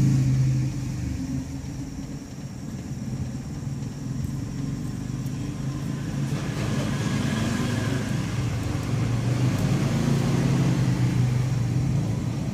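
A steady low rumble, dipping after the first second and growing louder again in the second half.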